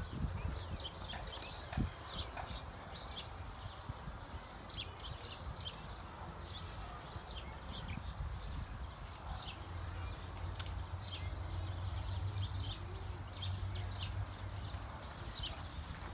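Giraffes feeding on leaves: many short crisp crackles and rustles of leaves and twigs being stripped and chewed, scattered irregularly throughout, over a low steady rumble.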